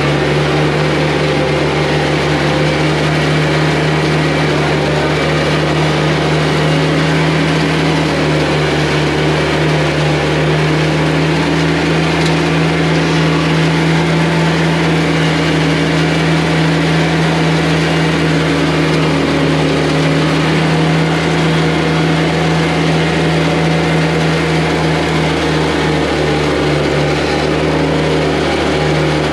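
Tractor engine and a trailer-mounted straw blower running together at a steady, unchanging pitch as straw bales are fed in, chopped and blown out through a hose as mulch.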